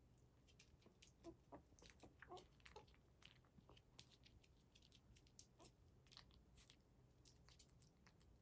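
Faint smacking and clicking from newborn poodle puppies, with a few tiny squeaks between about one and three seconds in.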